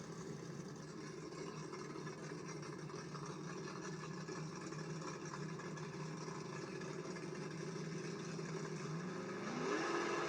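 Drag race car engines running steadily at the start line, then an engine revving up with rising pitch about nine seconds in.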